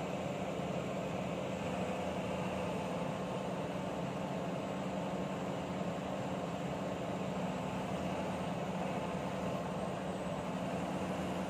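SK07 long-arm excavator's diesel engine running steadily while the arm and bucket work.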